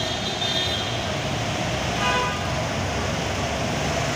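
Steady noise of torrential rain and road traffic on a wet street, with a vehicle horn tooting briefly about two seconds in.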